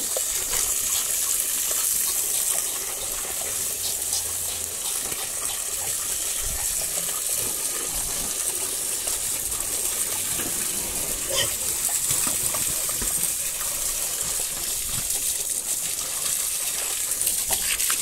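Liquid whey gushing steadily from a hose and splashing into a pig feed trough.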